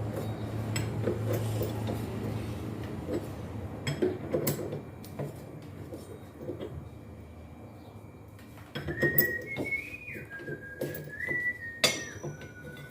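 Metal tools and machine parts clinking and knocking while the drive pulley is worked off the back of a washing machine. From about nine seconds in, a person whistles a tune in held notes that step up and down.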